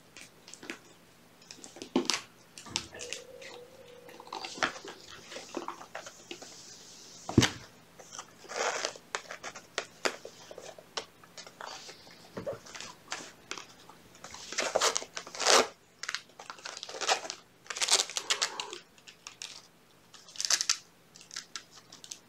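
Kittens scrabbling and moving about: irregular scratchy rustles, scrapes and clicks, in uneven flurries.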